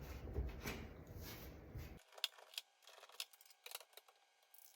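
Faint rustling and rubbing of wiping and handling at the oven front, then a few light clicks and ticks after the background drops away abruptly about two seconds in.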